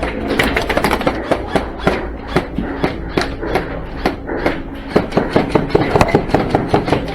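Airsoft gunfire: a string of sharp cracks, several a second with short lulls, over a steady low hum.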